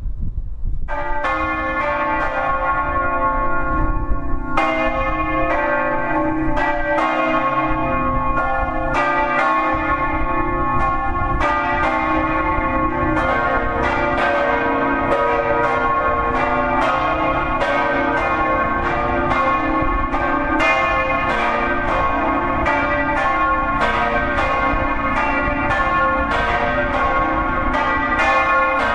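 Three bronze church bells of a cathedral's large set, swung in the Friulian style and ringing a peal (doppio). Their clappers strike in an irregular, overlapping pattern. The first stroke comes about a second in, the strokes are spaced out at first, and they come thick and fast after about twelve seconds as the bells swing higher.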